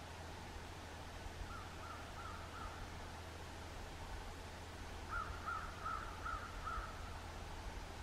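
A bird calling in two runs of short, repeated notes at about three a second: a faint run of four, then a louder run of five a few seconds later.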